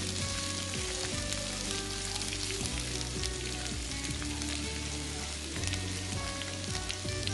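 Chopped onions frying in hot oil in a nonstick pan: a steady sizzle with fine crackles, and a wooden spoon stirring them about halfway through. Soft background music plays underneath.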